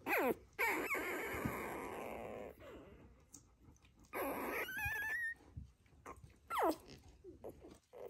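Newborn Doberman Pinscher puppy squeaking and whining: two quick squeals that fall steeply in pitch right at the start, a thin wavering whine about five seconds in, and another falling squeal near the end.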